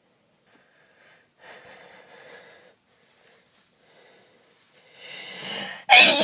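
A person's allergy sneeze: faint breaths, then rising gasping inhales from about five seconds in, and the loud sneeze itself breaks out just before the end.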